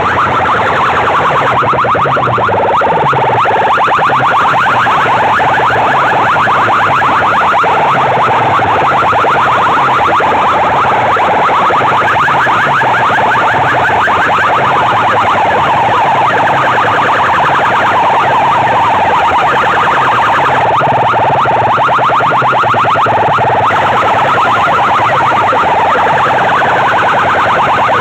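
Large competition loudspeaker box stacks blasting electronic siren-like tones, very loud and distorted, with a fast pulsing warble over a repeating low beat.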